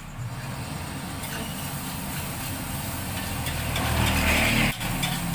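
A wok stove burner gives a steady low rumble under a wok of frying rice. About four seconds in, a louder sizzling hiss rises for about a second as the rice is stirred, then stops abruptly.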